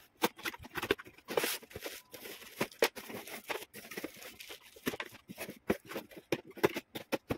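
Cardboard packaging being opened and handled, with foam inserts and plastic bags: irregular rustles, scrapes and light taps throughout.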